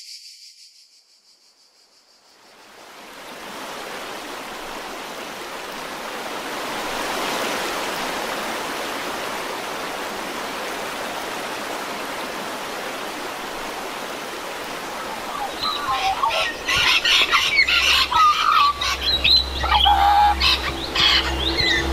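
A steady rushing noise swells in a couple of seconds in and holds. From about 15 seconds in, birds chirp over it and a low steady drone starts underneath.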